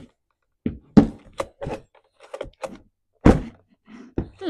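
Stihl MS 271 two-stroke chainsaw being pulled over by hand on its recoil starter, a series of sharp thunks and rattles from the rope, starter and saw body. The loudest come about a second in and again past three seconds. The engine turns over without firing, as a saw in for not starting.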